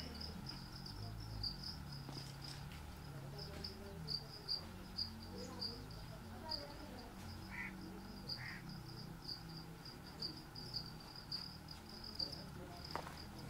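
Faint, steady high-pitched trilling of an insect, cricket-like, pulsing evenly without a break.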